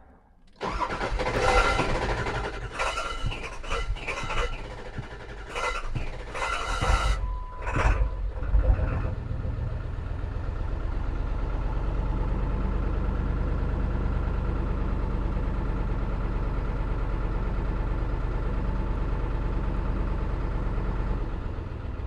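Ford 7.3 L Power Stroke diesel cranking for about eight seconds before it catches, then idling rough and unhappy. The owner suspects a fuel delivery problem.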